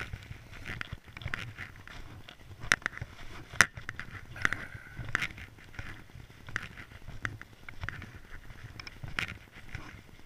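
Footsteps crunching on packed snow, with scattered sharp crackles and scrapes.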